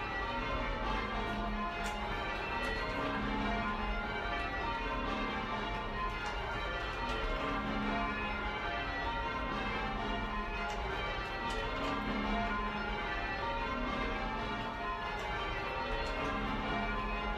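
Church bells in change ringing, a ring of ten rung by ropes and heard from inside the ringing room: a steady, unbroken stream of overlapping bell strokes in an even rhythm.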